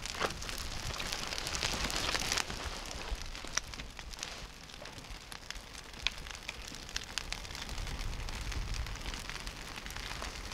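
Wood campfire burning: a steady hiss with scattered sharp crackles and pops. The hiss is louder for the first couple of seconds.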